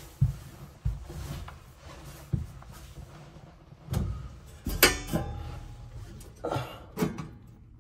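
Scattered knocks, clicks and scrapes from handling parts against the oven's sheet-metal cavity while a replacement igniter is worked into position, with the loudest clatter about five seconds in.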